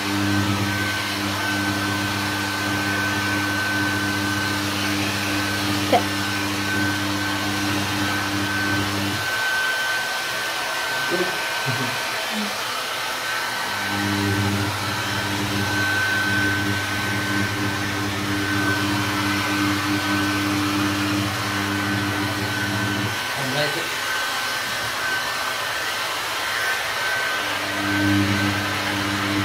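Hand-held hair dryer blowing steadily, with a thin high whine over its hiss. Its low motor hum drops away twice for a few seconds, and there is a single sharp click about six seconds in.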